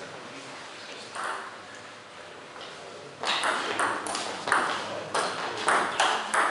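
Table tennis rally: the celluloid ball clicks quickly back and forth between the bats and the table. The sharp knocks begin about three seconds in and come several times a second.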